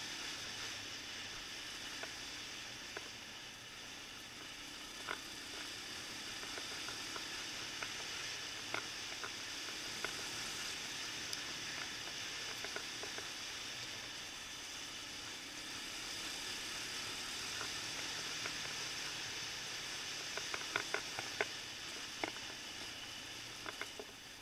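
Suzuki LT-Z400 quad running fast over a rough dirt track, heard through a camera mounted on the machine: a steady hiss of wind and engine noise. Sharp ticks and knocks from stones and bumps break through it, several in quick succession near the end.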